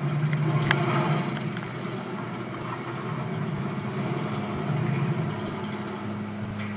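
Television soundtrack played through a rear-projection TV's speakers: a vehicle engine idling as a steady low rumble, with a single click under a second in.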